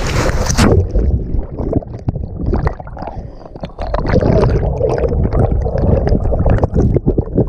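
Spray hissing and splashing over an action camera for under a second. Then the sound goes suddenly muffled as the camera plunges underwater, and water churns and bubbles around it.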